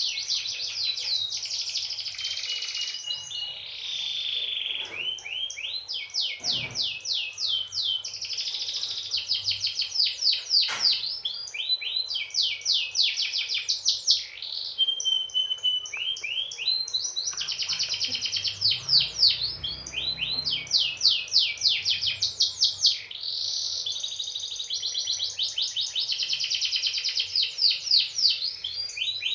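Domestic canary singing a long, continuous song of rapid trills, each made of quickly repeated falling notes, broken now and then by short held whistles.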